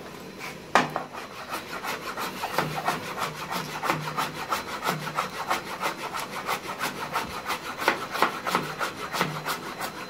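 Chef's knife chopping shredded cabbage on a plastic cutting board: quick, even strokes, several a second, starting about a second in, the first one the loudest.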